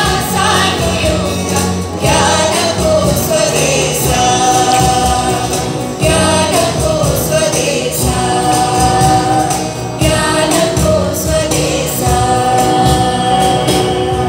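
Choir singing the college anthem with held notes, accompanied by acoustic guitar, with the chords changing about every two seconds.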